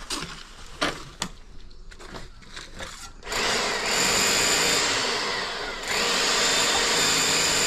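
Scattered clicks and knocks, then about three seconds in a Titan electric drill with a long drill bit starts up and runs loudly, boring under a concrete block foundation for a drain pipe; midway its speed sags and picks up again as the bit bites.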